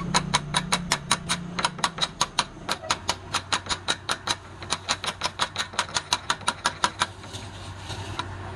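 A rapid, even run of sharp taps, about five a second, that thins out for a moment near the end and then picks up again. A steady low hum sits underneath from about three seconds in.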